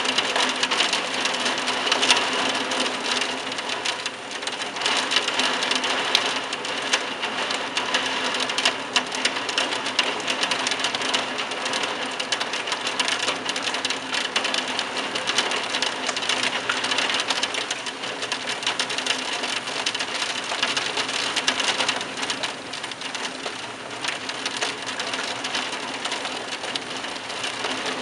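Heavy thunderstorm rain falling on a tiled roof: a dense, steady hiss made of countless drop impacts, swelling and easing slightly with the gusts.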